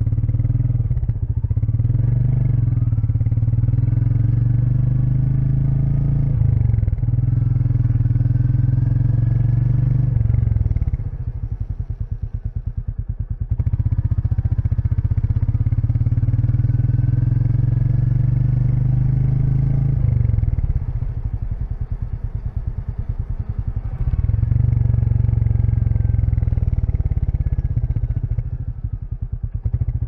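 Royal Enfield Meteor 350's single-cylinder engine running as the bike is ridden along, a steady low engine note. The note falls away twice, about 11 and 20 seconds in, and builds up again each time.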